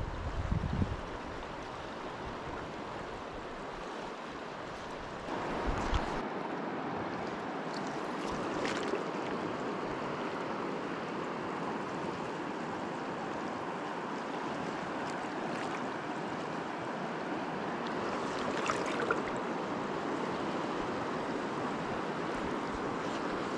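Steady rush of the Deschutes River's flowing water, stepping up a little in level about five seconds in, with a few faint clicks.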